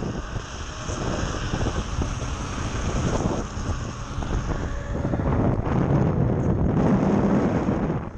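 Wind buffeting the microphone as a Onewheel XR electric board rides along a street, over the rumble of its treaded tyre on asphalt. The rushing swells louder about five seconds in.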